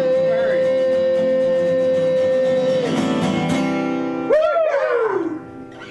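Closing bars of a country song on acoustic guitar: a long held note over strummed chords, then a falling glide about four seconds in as the music ends.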